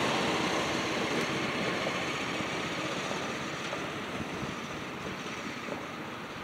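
Riding lawn mower driving away on a gravel path, its engine and tyre noise steadily fading as it moves off.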